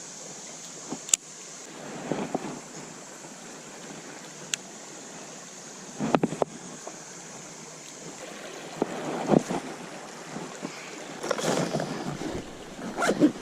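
Steady rush of flowing creek water, broken by scattered knocks and rustles of handling and footsteps, which grow busier over the last few seconds.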